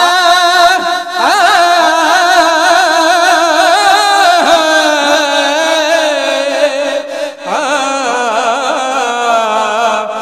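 A man singing a Punjabi qaseeda, drawing out long held notes with a wavering vibrato. Each phrase opens with an upward swoop in pitch, and the melody drifts slowly downward mid-way through.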